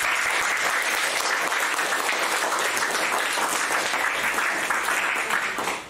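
Audience applauding, a steady dense clatter of many hands clapping that fades away at the very end.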